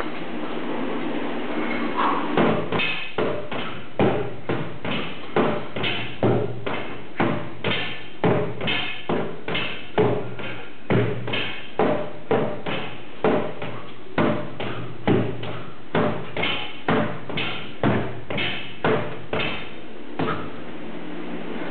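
A sword repeatedly striking a stack of old car tyres, a dull knock roughly every half second to second, starting about two seconds in and stopping near the end: one 20-second Tabata work interval of blows.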